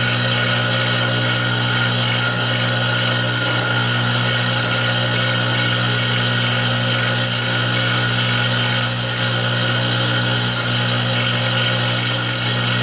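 Small benchtop wood lathe running steadily with a constant motor hum, while a hand-held turning chisel cuts the spinning wooden workpiece, adding a steady scraping hiss that brightens a little now and then.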